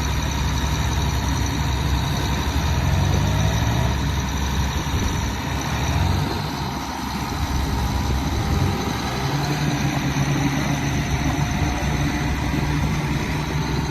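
Diesel engine of a self-propelled forage harvester running under load while it pulls a stuck silage truck out of wet ground on a chain. Its pitch rises and falls a little a few seconds in and again later.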